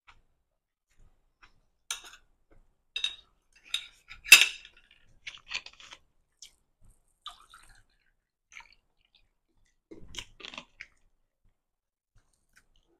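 Scattered table clicks and clinks: chopsticks laid down on a ceramic plate, a plastic bottle handled and iced tea poured into a glass, with one sharp click, the loudest sound, about four seconds in. A dull knock with more clicks comes about ten seconds in, as the glass is handled.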